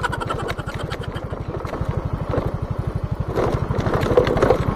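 Motorcycle engine running steadily under way, a fast, even putter. A short rattle right at the start.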